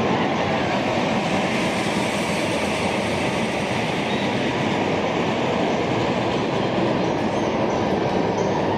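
A steel roller coaster train running along its track overhead: a loud, steady rolling noise of wheels on steel rails that holds evenly throughout.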